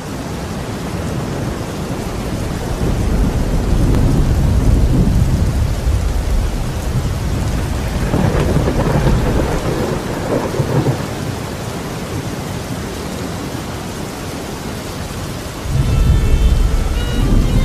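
Steady rain with rolling thunder: a long low rumble builds about three seconds in, and another heavy roll breaks near the end.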